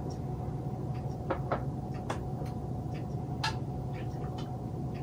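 A few light clinks and taps of glass on glass while brine is poured from a glass measuring cup into a glass jar of green beans, over a steady background hum.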